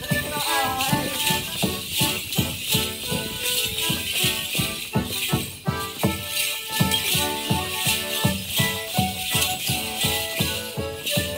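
Accordions playing a lively morris dance tune with a steady beat, with bells jingling in time on the dancers as they step.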